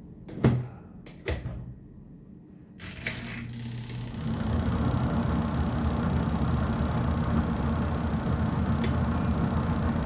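Frego washing machine: two clicks as the wash selector knob is turned, then about three seconds in the wash motor starts and drives the pulsator in the empty tub. It settles into a steady mechanical hum that grows louder about a second after starting.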